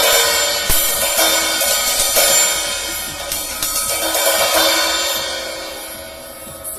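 Nebulae 14-inch crash cymbal struck repeatedly, its bright shimmering wash swelling again with each hit about every two seconds, then fading away toward the end.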